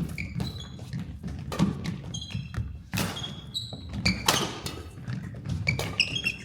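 Badminton rally: sharp racket hits on the shuttlecock every second or so, short high squeaks of court shoes on the floor, and thudding footsteps.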